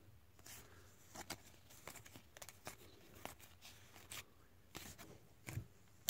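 Faint, scattered soft clicks and slides of Topps trading cards being flipped through by hand, over near silence.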